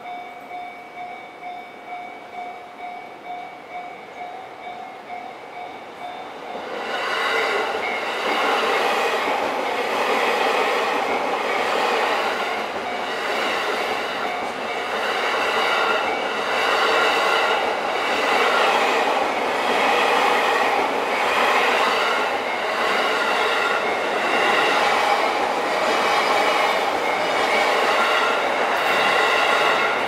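Japanese level-crossing warning bell ringing in a steady electronic ding-ding, about two strokes a second. About six seconds in, a green-and-orange striped commuter electric train reaches the crossing and passes through, its wheels and motors drowning out the bell with a loud rumble that swells and eases in a regular rhythm.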